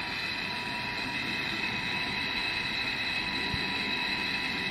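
Handheld gas torch flame burning steadily, heating an aluminum clip for brazing with an aluminum brazing rod.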